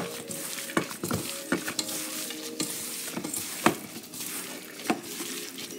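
Gloved hands squishing and kneading raw beef strips with seasoning and oil in a stainless steel bowl, marinating the meat. Irregular wet squelches with a few sharper knocks against the bowl.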